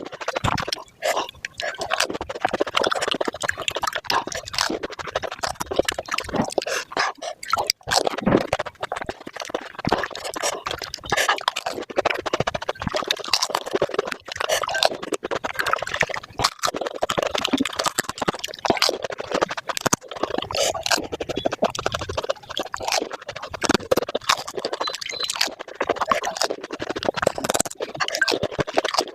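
Panipuri being eaten at high speed: the crisp puri shells crunching and the spiced water slurping, sped up so the crunches and slurps run together in a dense, rapid stream.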